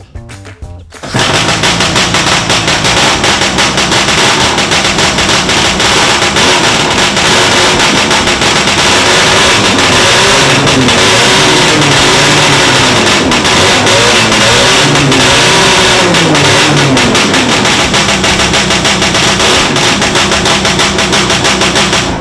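The Rotax 494 cc two-stroke twin of a 1968 Ski-Doo Stinger II race snowmobile with twin pipes, catching about a second in and then running loud. In the middle its pitch rises and falls several times as the throttle is blipped.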